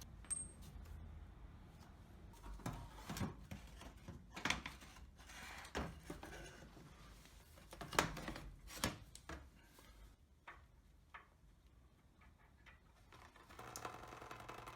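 A series of scattered knocks and clinks, like parts or tools being handled. Near the end a steady mechanical running sound starts.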